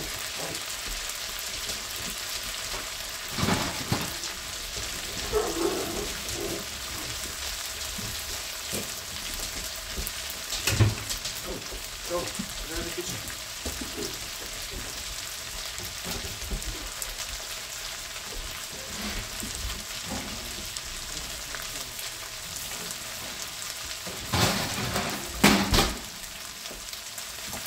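Homemade gnocchi pan-frying in a skillet, a steady sizzle. A few short knocks and clatters break in, the loudest cluster near the end.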